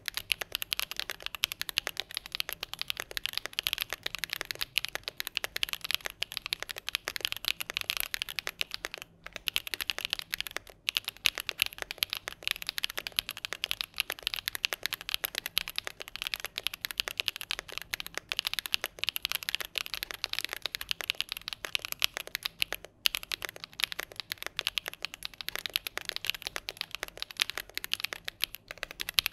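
Fast typing on a Keychron Q10 Alice-layout mechanical keyboard: a dense stream of key clicks with a few brief pauses, stopping abruptly at the end.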